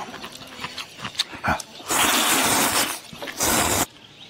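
Slurping of rice noodles in broth (luosifen) from a bowl: small smacking clicks at first, then a long loud slurp about two seconds in and a shorter one just after.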